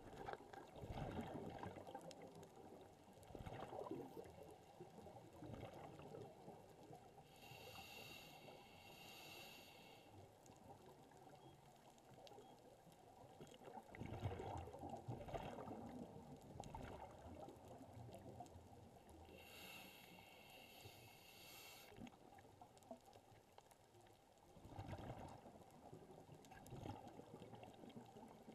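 Faint, muffled underwater sound of a scuba diver breathing through a regulator: two hissing inhales, about eight and twenty seconds in, and swells of exhaled bubbles between them.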